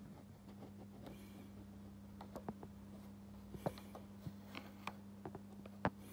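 Faint steady low hum with scattered small clicks and rubbing from a phone being handled, a finger over its microphone side.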